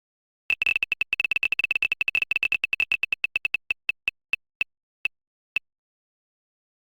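Prize-wheel ticking sound effect: rapid clicks, each with the same short high beep, slowing steadily as the wheel winds down and stops. A last single click comes near the end.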